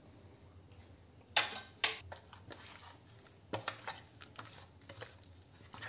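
A steel spoon clinks twice against a bowl about a second and a half in as chili powder is added, then a hand mixes marinated fish pieces in a ceramic dish with small knocks and rubbing.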